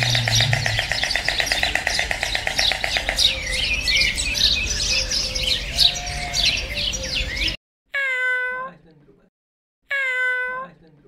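A busy chorus of many short, high chirping calls that cuts off abruptly. Then a domestic tabby cat meows twice, each meow about a second long and steady in pitch.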